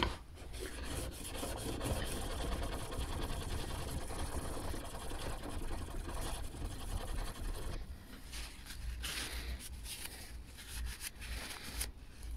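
Back of a chisel being rubbed back and forth flat on a DMT DuoSharp diamond sharpening plate: a continuous rasping scrape of steel on the diamond surface as the back is flattened. It gets quieter about eight seconds in.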